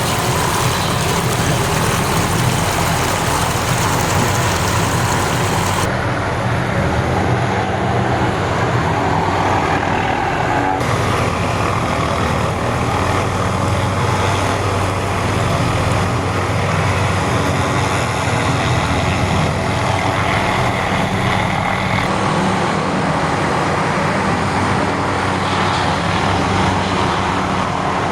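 Hughes 500D helicopter running steadily close by, its turbine engine and rotors making a loud, continuous noise with a low hum underneath.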